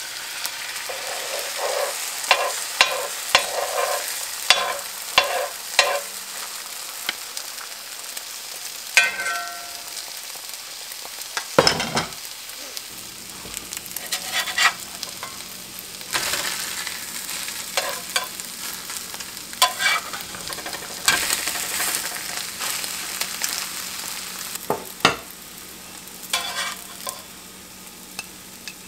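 Eggs and onions sizzling in hot oil in a cast-iron skillet, a steady hiss, with repeated sharp clicks and scrapes of a metal spatula against the pan as the eggs are turned and lifted.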